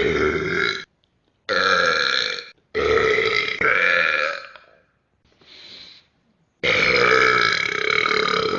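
Men burping loudly, about five belches one after another. The last is a long, drawn-out burp of over two seconds; one in the middle is much fainter.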